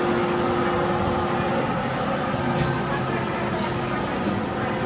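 Steady rushing air noise from a blower, with a hum that fades about a second and a half in, over the hubbub of a busy room.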